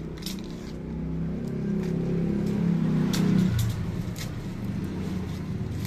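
A motor vehicle's engine running, growing louder with its pitch shifting to a peak about three seconds in, then settling to a lower hum. A few light clicks of plastic being handled sound over it.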